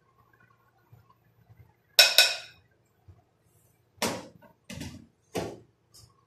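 Spoon clinking twice in quick succession against a glass bowl with a brief ringing, followed by three duller knocks spaced a little under a second apart.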